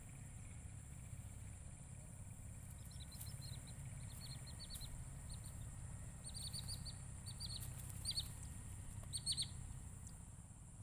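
Small bird chirping in quick clusters of short high notes, from about three seconds in until shortly before the end. A steady low rumble runs underneath.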